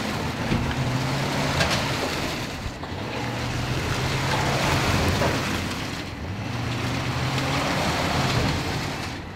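A motor vehicle's engine running under a loud rushing noise. The noise swells and fades about every three seconds.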